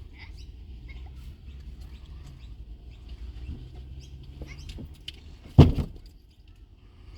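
A single heavy thump about five and a half seconds in, over a low steady hum and faint scattered ticks.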